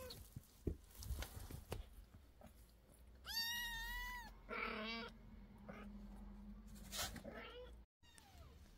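Kitten meowing: a short rising call at the start, a long, high, steady meow about three and a half seconds in, then a rougher call and another shorter meow near the end. Soft rustling and knocks of movement on the bedding come between the calls.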